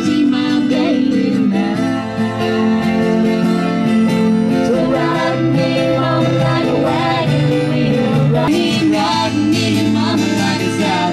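Music with plucked acoustic guitar and a singing voice, in a country or bluegrass style.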